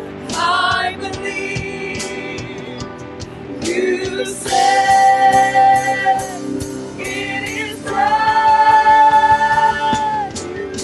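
Gospel singing in a church service, long held notes in phrases of about two seconds over accompaniment with light percussion taps.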